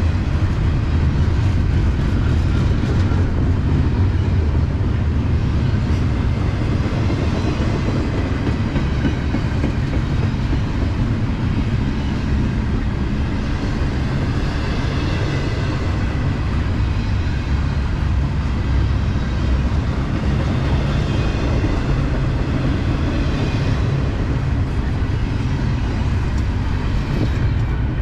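Freight train cars rolling past close by: a loud, steady rumble of steel wheels on rail, with faint high tones above it.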